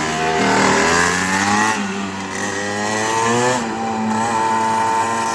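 Small motor-vehicle engine revving as the vehicle is ridden: the pitch climbs, dips briefly, climbs again, then holds steady near the end.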